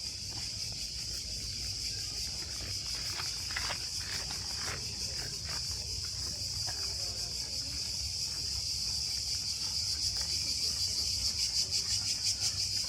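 Cicadas buzzing steadily in the garden trees, a high shrill drone that swells near the end into a pulsing rhythm of about three beats a second.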